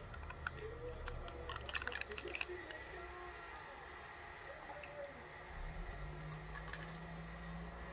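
Teaspoon clinking against a ceramic mug and sugar sachets being torn and handled: a run of light clicks in the first two and a half seconds and a few more a little after the middle.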